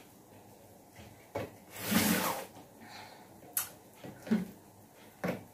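Quiet handling noises as pie dough is pinched shut on a metal baking tray: a few light clicks and one louder rushing noise about two seconds in.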